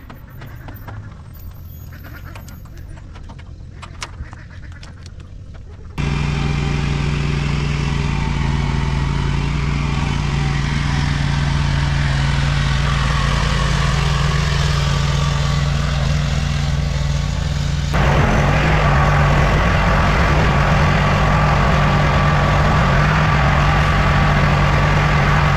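A vehicle engine running steadily and loud, in clips cut together with sudden changes about six seconds in and again near eighteen seconds; the first few seconds are quieter, with scattered clicks and knocks.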